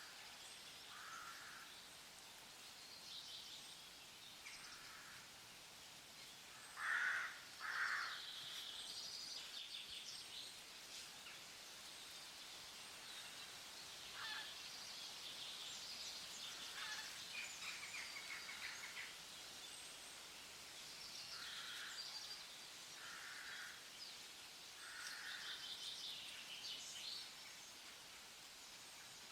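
Wild birds calling and chirping over a faint outdoor hiss: high twittering runs throughout, with lower short calls recurring, the two loudest about seven and eight seconds in.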